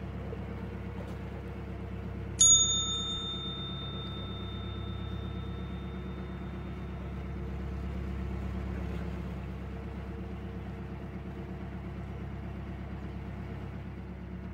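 Narrowboat's inboard engine running steadily under way. A single sharp metallic ding about two and a half seconds in rings clearly and fades over a second or so.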